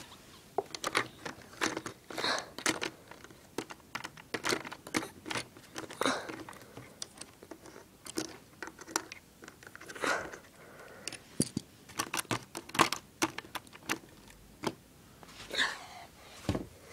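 Lego pieces being handled: irregular light plastic clicks and rattles, a few sharper knocks among them.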